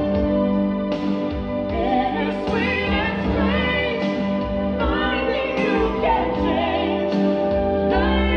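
A recorded pop ballad playing through a hi-fi amplifier and loudspeakers: a singing voice with vibrato over sustained instrumental backing.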